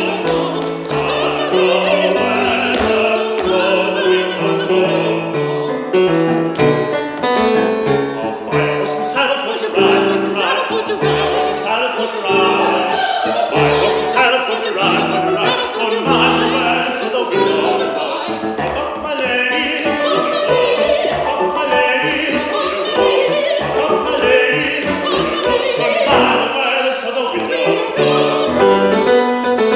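Soprano and baritone singing a folk-song duet in classical operatic style with piano accompaniment, the notes changing quickly throughout.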